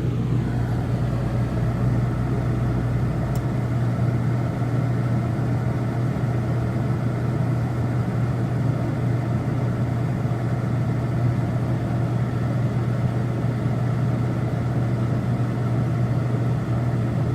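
RV rooftop air conditioner running: a steady fan blowing over a low, even motor hum. The deepest part of the rumble drops away about three and a half seconds in.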